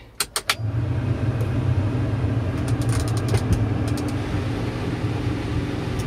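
Heater/ventilation blower fan of a Nissan Clipper kei truck, switched on with a few clicks of the fan-speed knob and then running steadily, blowing air out of the dash vents on recirculation through a newly re-covered cabin air filter. A few light clicks come about three seconds in.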